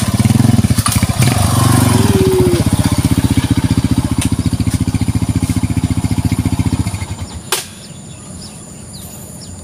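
A small engine running nearby with a fast, even throb, fading out about seven seconds in. A single sharp click follows, then faint bird chirps.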